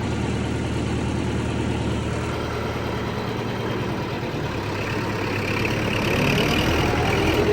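Massey 5900 tractor's diesel engine running steadily with a low drone.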